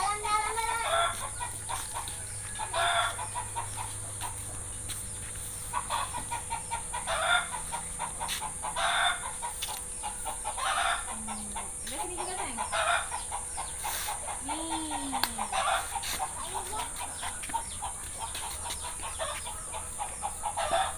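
Chickens clucking and calling, short calls repeating every second or two over a steady background hiss.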